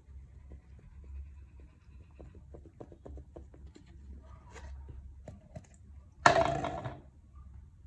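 Kinetic sand crumbling and falling onto a tabletop: many small soft crackles and pattering grains. About six seconds in comes a louder crunching burst, under a second long, as a bigger clump drops and breaks apart.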